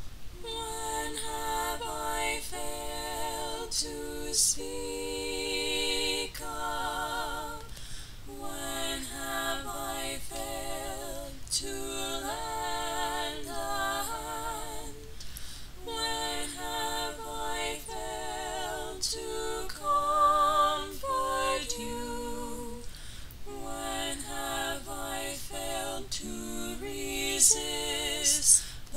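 A woman singing a cappella, a slow song with vibrato, in phrases of several seconds separated by short breaks.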